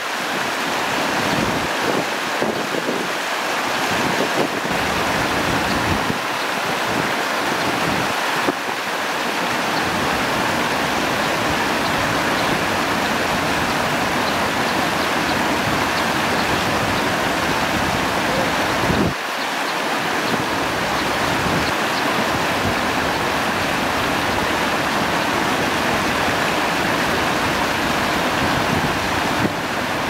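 Steady rushing of river water pouring over a low rock step into a shallow rocky channel, with a brief dip and change about two-thirds of the way through.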